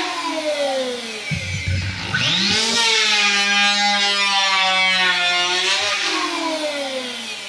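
Electric hand power planer running on hardwood floorboards, planing down raised board ends. Its motor whine drops in pitch with a rough low grind as the cutter bites about a second in, climbs back to a steady pitch, then winds down near the end.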